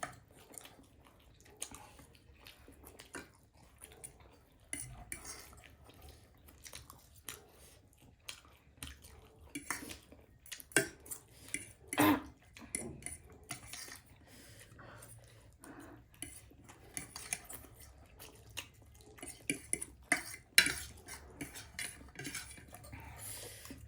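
Forks or spoons clinking and scraping against bowls as noodles are eaten, in irregular clicks and knocks, with the sharpest clinks about halfway through and again near the end.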